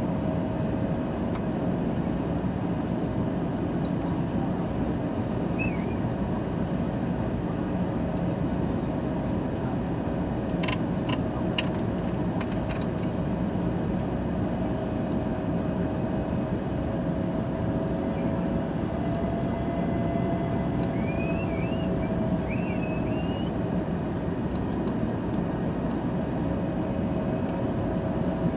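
Steady airliner cabin noise: a constant rumble with a steady engine hum, and a few light clicks about ten to thirteen seconds in.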